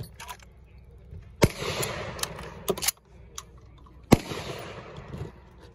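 Two 12-gauge shotgun shots about two and a half seconds apart, each followed by a ring-out of echo that fades over about a second. Two fainter sharp cracks fall between them.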